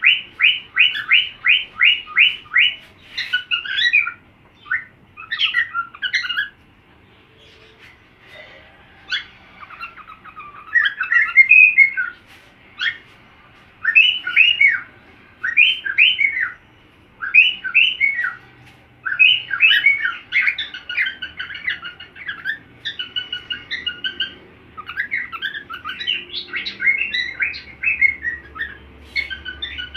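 Cockatiel singing a whistled song: a fast run of repeated chirps, about five a second, then varied whistled phrases with short pauses between them, and a quieter gap around eight seconds in.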